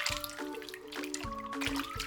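Background music with a steady beat and a simple melody, over water dripping and trickling as a clay-covered toy is washed.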